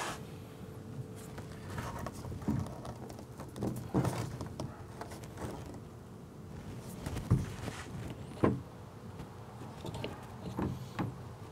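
PVC pipe laterals and fittings knocking and clicking irregularly as they are handled and pushed together into a bog-filter manifold, with two louder knocks in the second half.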